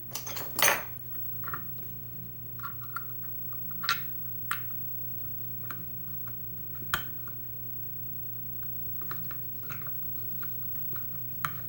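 Scattered light metallic clicks and scrapes of small tools working the retaining clip off the lock cylinder of an ABUS 80/45 padlock. The loudest cluster comes right at the start, and a steady low hum runs underneath.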